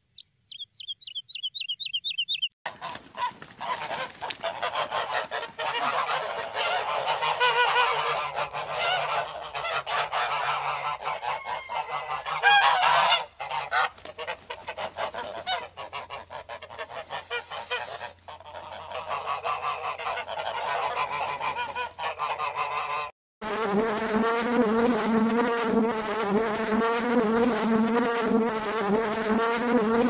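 A bird's quick trill of chirps, then about twenty seconds of a flock of ducks and geese honking and quacking over one another. From about twenty-three seconds in, this gives way to the steady, wavering wing buzz of honeybees.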